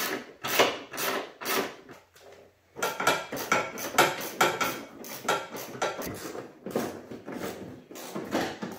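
Metal clinking and rattling from hand tools and the loosened sheet-metal truck fender as its mounting bolts are worked off, repeating two to three times a second with a short pause about two seconds in.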